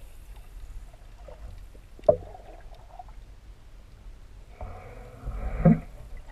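Underwater sound picked up by a camera below the surface: a low steady rumble of moving water, a sharp click about two seconds in, and a louder burst of water noise about five seconds in.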